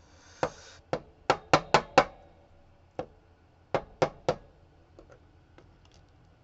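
Sharp knocks of small metal lock parts against a hard surface as a Dom RS8 lock is gutted, about ten in all: a quick run in the first two seconds, three more around four seconds in, then a few faint clicks.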